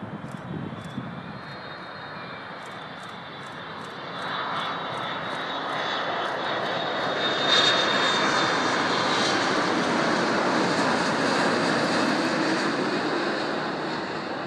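Boeing 787 Dreamliner's twin turbofan engines on landing approach, a jet rush with a high whine that swells as the airliner comes over, loudest about halfway through, then eases slightly near the end.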